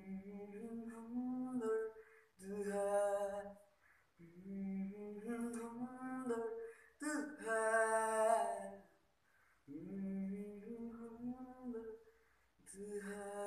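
A boy singing solo without accompaniment: a string of long, held melodic phrases with short breaths between them, the loudest just past the middle.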